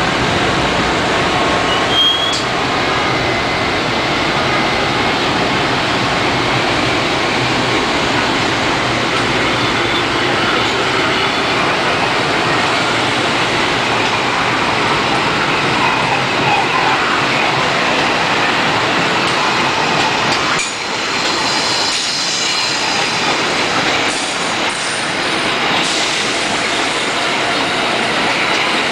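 Metro-North electric multiple-unit commuter train running past at speed, a continuous loud rolling rush of wheels on rails. A short high wheel squeal comes about two seconds in, and fainter high squeals come in the last third.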